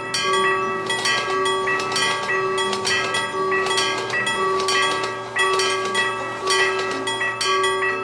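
Railroad crossing warning bell ringing in repeated strikes, a few a second, while a train passes.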